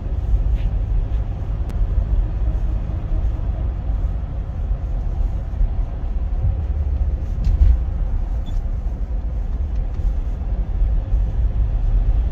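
Road noise inside a moving car's cabin: a steady low rumble of engine and tyres at cruising speed.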